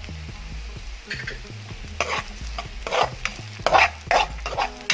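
Metal spoon stirring and scraping ginger, garlic and red onion sautéing in oil in a coated pan, with sizzling. The scrapes come in several short strokes, mostly in the second half.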